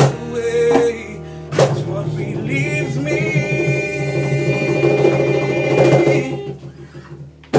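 Acoustic band of acoustic guitars, bass guitar and cajon playing the closing chords of a song together: sharp hits, then a last chord that rings and fades out about six seconds in.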